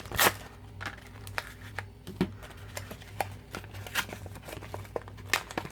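Packaging being opened and handled by hand: scattered crinkles and sharp little clicks, with a steady low electrical hum underneath.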